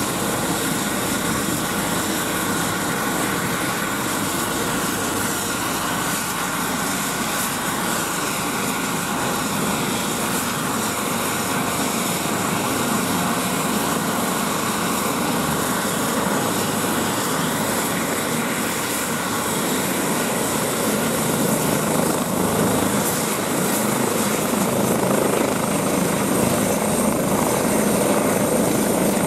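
An Airbus H135 (EC135) twin-turbine helicopter runs on the ground with its main rotor turning. It is a steady turbine-and-rotor noise that grows slightly louder, and a thin high turbine whine comes in and rises a little near the end.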